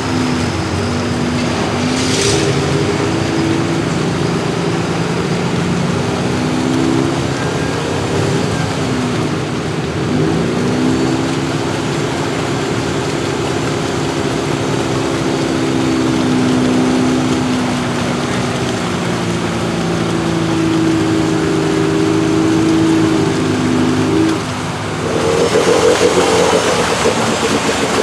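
Suzuki Samurai's turbocharged 1.6-litre 16-valve engine running hard under load, its pitch dipping and climbing again about ten seconds in. Near the end the engine tone gives way to a louder rushing noise.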